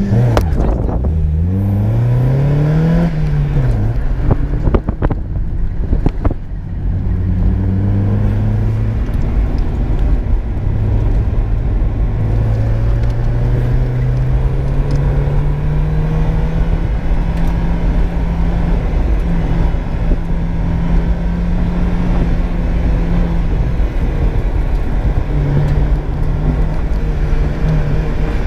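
1995 Mazda Miata's 1.8-litre four-cylinder engine, breathing through a test pipe and an aftermarket racing muffler, launching hard off the line with a steep rising rev and a shift a few seconds in. It then runs hard through an autocross run, its pitch climbing and dropping with throttle lifts and gear changes.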